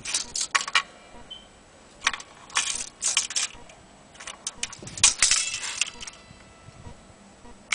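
Short irregular bursts of light metallic jangling and scraping from a steel tape measure being handled against the metal strings of an old chord zither (autoharp).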